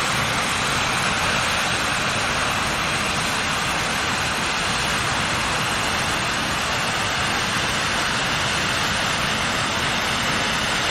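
Waterfall's falling water rushing with a steady, even roar.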